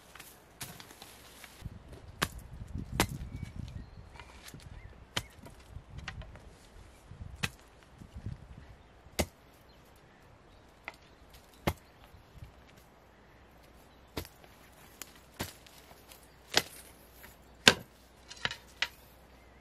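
Long-handled hoe chopping into stony soil: irregular sharp strikes of the blade a second or more apart, with the dull thud of earth being turned over during the first several seconds.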